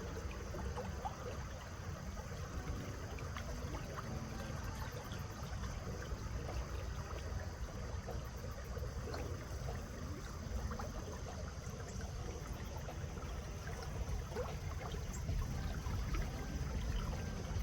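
Steady running water of a stream, with small splashing crackles over a continuous low rush.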